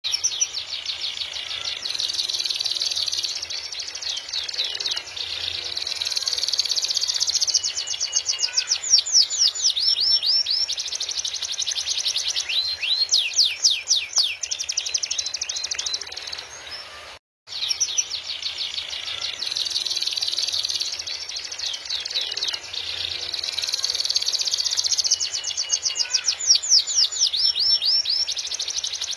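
Domestic canary in full, continuous song: long high warbling phrases and fast rolling trills, one running straight into the next. The song breaks off for a moment about seventeen seconds in and then starts over.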